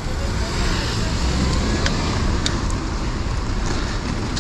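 Road traffic: a steady rumble of cars and other vehicles, with a few faint clicks.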